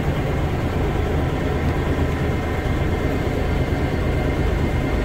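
Tour boat's engine running steadily while underway, a low drone.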